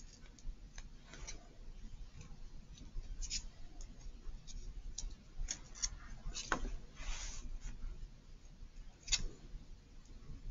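Magazine paper being torn by hand into small pieces: soft short rips and crinkles scattered throughout, with a longer rip about seven seconds in.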